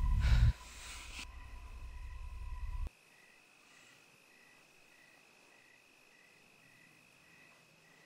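A dark film-score swell with a low rumble building and then cutting off abruptly about three seconds in, leaving faint night ambience of crickets chirping in an even pulse, a little under two chirps a second.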